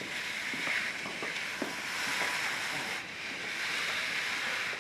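Food sizzling in a frying pan: a steady hiss with faint scattered crackles.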